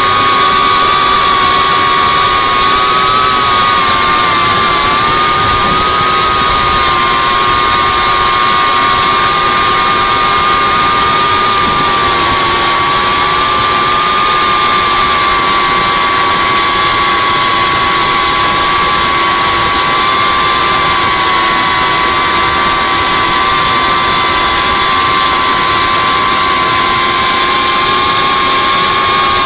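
FPV quadcopter's electric motors and propellers whining steadily in flight, the pitch wavering only slightly with throttle, over a loud hiss of prop wash and wind, picked up by the drone's onboard camera.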